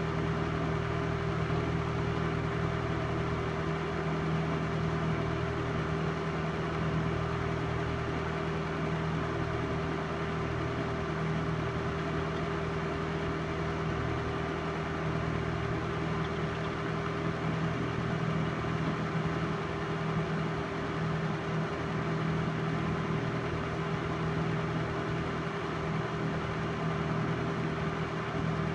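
Film projector running: a steady motor hum and whir with no change.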